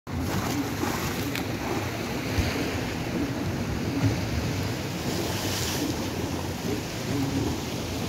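Sea waves washing and splashing against a rocky shore platform, with wind rumbling on the microphone and a couple of brief thumps.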